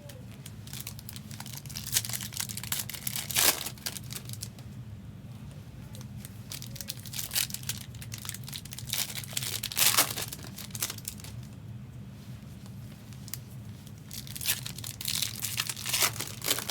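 Trading card packs being torn open, with the wrappers crinkling and the cards handled: irregular sharp crackles, loudest at about 3.5 and 10 seconds in, over a steady low hum.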